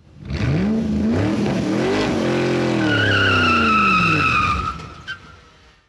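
A car engine revving, its pitch rising and falling, with a high tyre squeal from about three seconds in. A short click near the end, then it fades out.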